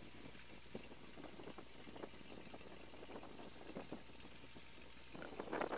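Faint Boeing Stearman biplane's seven-cylinder Continental radial engine idling as it taxis, with light irregular ticking over a steady low hum.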